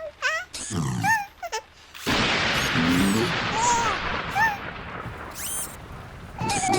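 Cartoon sound effects: a few short squeaky calls that slide up and down in pitch. About two seconds in, a sudden loud rush of noise starts, lasts about four seconds with a couple of short calls over it, and fades near the end.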